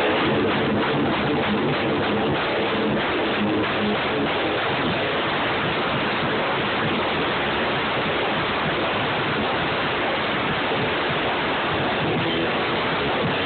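Rock band playing loud and distorted, heard as a dense, steady wash of noise with faint pitched notes, and drum hits that fade out in the first few seconds.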